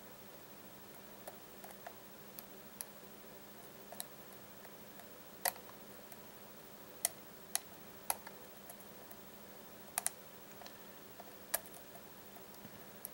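Light metallic clicks at irregular intervals from a lock pick working the pins of a Baldwin pin-tumbler lock cylinder held under a tension wrench.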